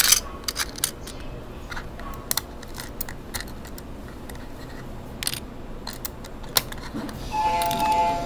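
Small hard plastic miniature toys clicking and rattling against each other and the plastic compartment box as they are handled, a dozen or so separate clicks over the steady low rumble of a moving subway train. Near the end, a steady tone at two pitches comes in.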